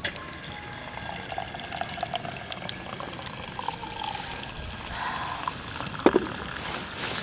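A drink being poured into a cup; the pouring tone rises a little as the cup fills. Light clicks throughout and a sharper knock about six seconds in.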